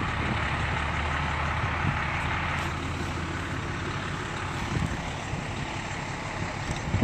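Large truck engine idling steadily, with gusty wind blowing over the microphone.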